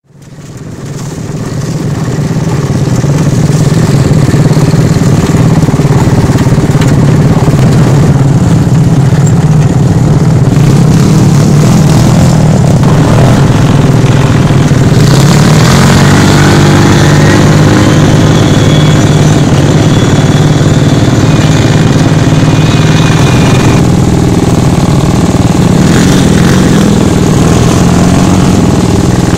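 Off-road dune buggy engines running steadily, fading in over the first couple of seconds, with the pitch rising as the engine revs up about halfway through.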